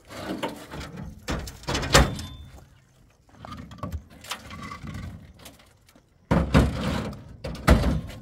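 Irregular knocks and thuds of hard objects being handled and set down, the loudest about two seconds in, with a cluster of them near the end.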